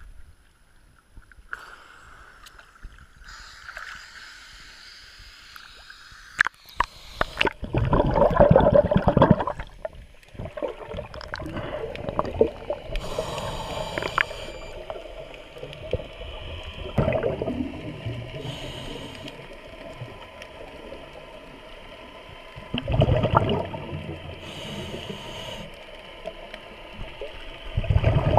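Scuba dive heard through the camera's waterproof housing: after a quieter stretch at the surface, muffled gurgling swells of exhaled regulator bubbles come every several seconds, the loudest about eight seconds in, over a steady hum.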